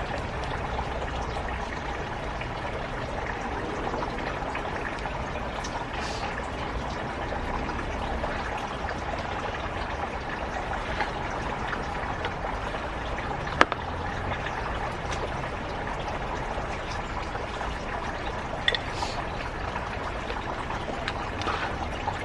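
Steady sound of running or pouring water, even and unbroken, with a sharp click about halfway through and a smaller one later.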